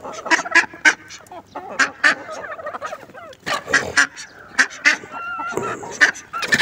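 A mixed flock of chickens, ducks and guinea fowl calling as they feed: many short, overlapping clucks, duck calls and sharp calls in quick succession.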